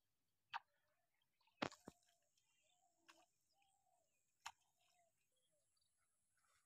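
Quiet rural ambience with faint bird chirps, broken by five short sharp clicks or knocks, two of them close together about two seconds in.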